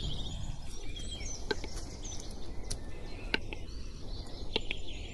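Male western capercaillie's display song: a few sharp, well-spaced clicks about a second apart, with small birds chirping faintly in the background.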